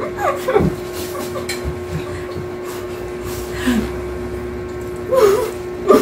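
Steady hum of room noise with a few short vocal sounds from the people at the table, about half a second in, near four seconds and a little after five seconds.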